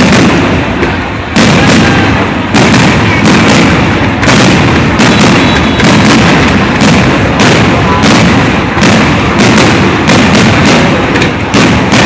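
Aerial fireworks exploding in dense, rapid succession: many loud bangs and crackles a second, overlapping into an unbroken barrage.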